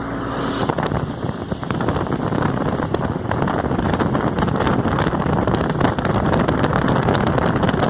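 Loud, rough rushing noise of wind buffeting the microphone, with a dense crackle throughout, as from a moving vehicle in the rain.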